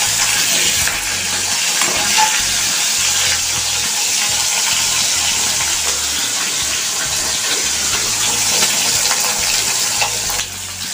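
Pieces of stingray fish sizzling steadily as they fry in hot oil in a kadai. The hiss eases a little near the end.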